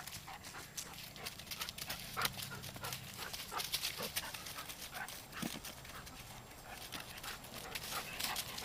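A dog and a white-tailed deer scuffling and trotting about on dry leaf litter: a busy run of crunching footfalls and rustling, one sharper crackle about two seconds in.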